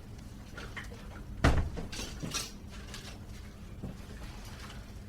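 Office room tone with a loud thump about a second and a half in, followed by brief light clattering of small objects and a faint click later.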